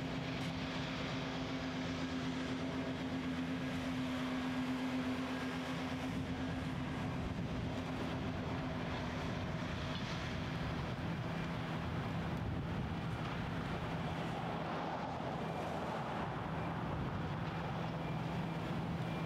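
Heavy machinery engines running steadily, with a low hum underneath and a second, higher hum that fades out about six seconds in.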